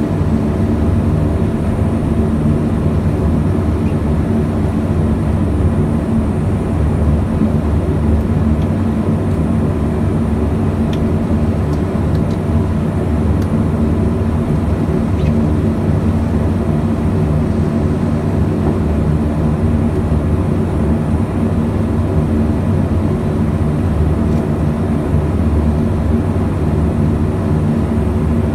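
BAe Jetstream 32's Garrett TPE331 turboprop engines and propellers running steadily at taxi power, heard from inside the cabin as a steady drone with several held tones.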